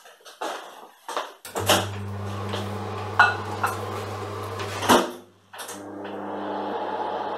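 Whirlpool microwave oven door opened with a click, then a bowl set inside with a couple of clunks over a steady electrical hum. The door shuts with a loud knock about five seconds in, and the oven then starts heating with a steady hum.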